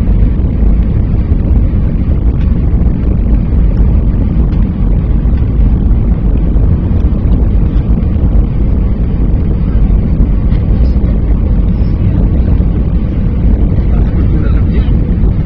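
Jet airliner cabin noise on final approach for landing: a loud, steady low rumble of engines and rushing air heard inside the cabin, with a faint steady hum.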